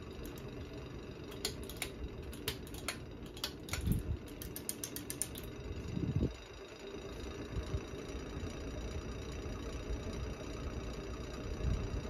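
Hampton Bay Genoa ceiling fan running, a steady low hum with the blades whooshing round. A run of light clicks comes over the first five seconds, and a few low thumps come along with it.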